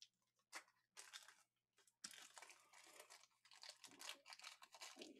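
Faint crinkling and rustling of handled packaging: a few short crackles at first, then near-continuous crackling from about two seconds in.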